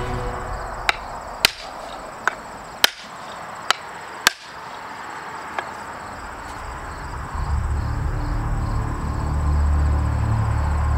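A mallet striking the top end of a wooden axe handle six times, a sharp knock every half second to a second, driving the handle into the axe head's eye. A low steady rumble comes in about seven seconds in.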